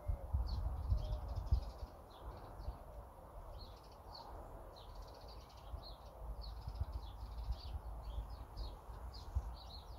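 Small birds chirping, many short high calls scattered all through, over a low rumble that is loudest in the first second and a half.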